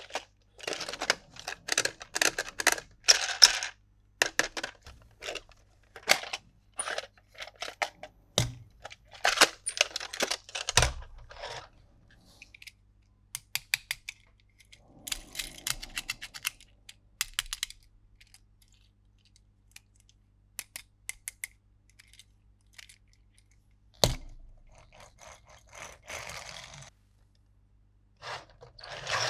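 Hard plastic toy pieces and packaging being handled: many sharp clicks and taps mixed with short crinkling and scraping rustles, thinning to occasional clicks in the middle, with one heavier knock later.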